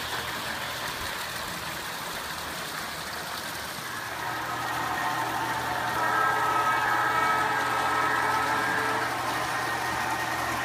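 Model diesel locomotive running past with a steady mechanical hum. A whine comes up about five seconds in and holds for a few seconds as it goes by close.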